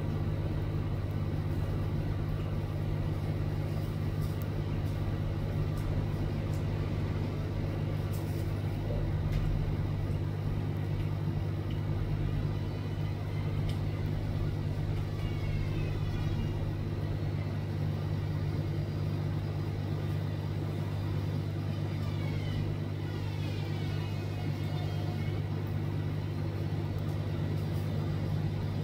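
A steady low machinery hum that holds the same pitch throughout, with short runs of high chirps around the middle and again near the end.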